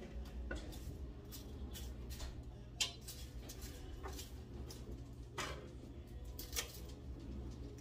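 Kitchen knife cutting red onion on a wooden cutting board: irregular light knocks and taps, the sharpest about three seconds in, over a steady low hum.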